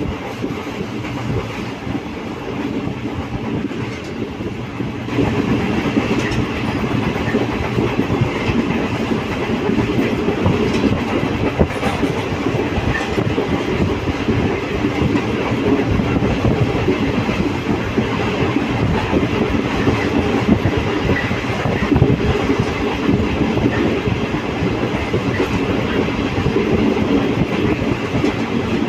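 Passenger train running along the track, heard from on board: a steady rumble with wheels clattering over the rail joints, getting louder about five seconds in.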